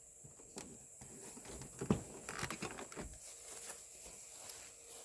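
Irregular small knocks, clicks and rustling, with one louder thump about two seconds in.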